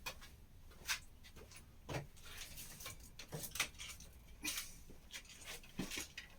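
Scattered light knocks and clicks, about one a second, from things being handled and set down.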